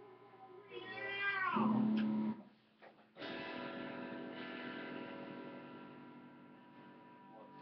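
Electric guitar through an amplifier: a note bends down in pitch, cuts out briefly, then a chord is struck about three seconds in and left to ring, slowly fading.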